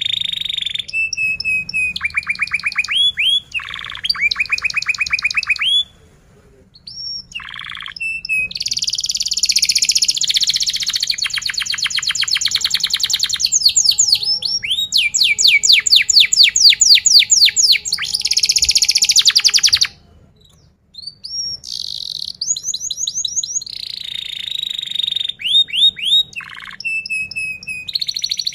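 Domestic canary singing: long phrases of rapid trills and quickly repeated sweeping notes, with two short pauses, one about six seconds in and one about twenty seconds in.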